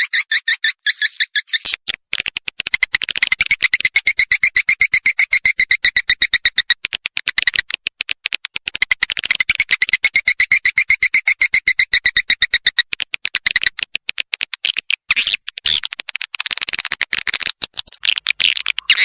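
Swiftlet lure call: a loud, fast chattering twitter of edible-nest swiftlets, made of rapid clicks and chirps in long runs broken by short pauses. It is the recorded call that swiftlet farmers play to draw the birds into a nest house.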